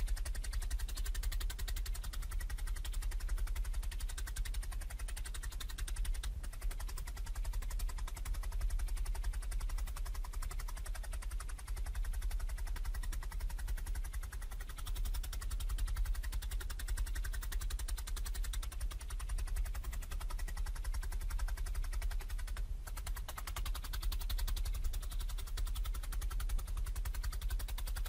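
Felting needle punching again and again through wool roving into a dense foam mat, a fast unbroken run of quick pokes, sped up.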